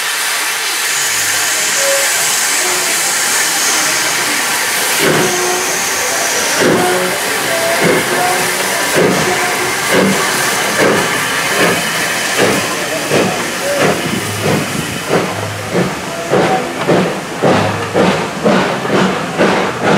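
LNER Q6 0-8-0 steam locomotive starting a train: steam hissing, then from about five seconds in its exhaust beats come slowly and quicken to about three a second as it gets the train moving, with the cylinder drain cocks open and hissing.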